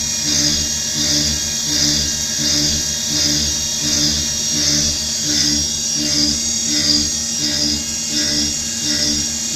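Milling machine cutting with a dynamic (trochoidal) toolpath: a steady spindle whine, with cutting noise that swells and fades about twice a second as the end mill loops into and out of the material.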